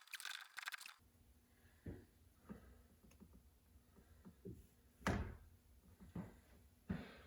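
Hand tools being handled while working on a car's seatbelt bolt: a quick run of fine metallic clicking in the first second, then a few scattered knocks and clunks, the loudest about five seconds in.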